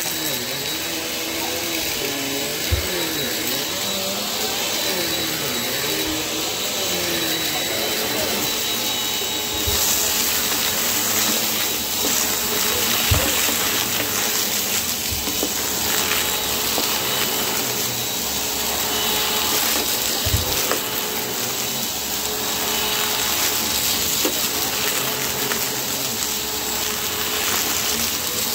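Small Bissell upright vacuum cleaner running steadily as it is pushed over a shag rug, sucking up scattered debris. The motor has a thin high whine, the sound turns brighter and a little louder about ten seconds in, and a few soft knocks come through.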